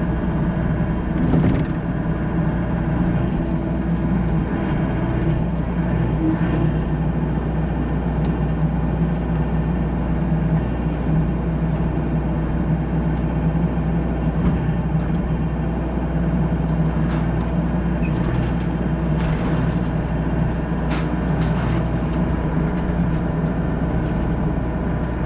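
Mini excavator's diesel engine running steadily under load, with a few scattered clanks and scrapes as the machine handles sheet-metal barn panels.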